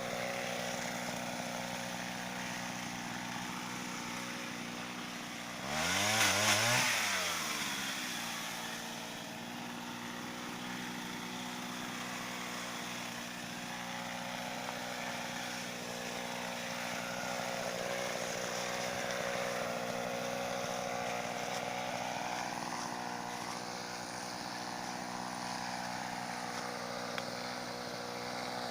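Pole saw driven by a Mitsubishi TL26 two-stroke brush-cutter engine, running steadily at a low throttle. About six seconds in it revs up sharply for a second or two, then drops back.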